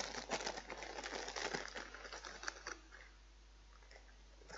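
Rapid small clicks and rustles of a small toy's parts being handled and fitted, dying away about three seconds in.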